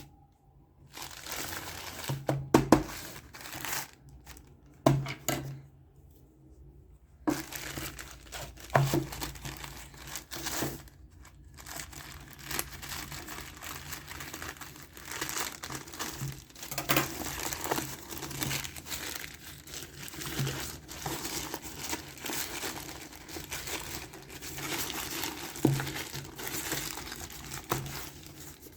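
Packaging being handled and crinkled open by hand, with some tearing. A few scattered knocks come first, then continuous crinkling from about seven seconds in.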